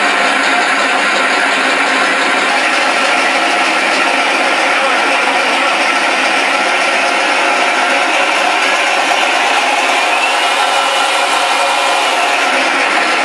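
Mr. RC Sound V4 sound module playing a simulated Pratt & Whitney Wasp radial engine running steadily through two 3-inch speakers, with almost no deep bass.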